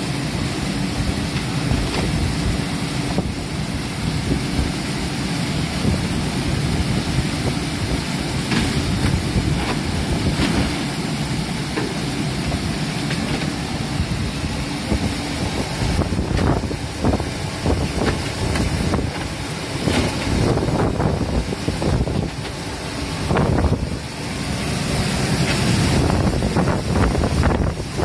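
Commercial fruit and vegetable washing machine running: steady churning water with a motor hum that stops about halfway through, followed by more uneven splashing.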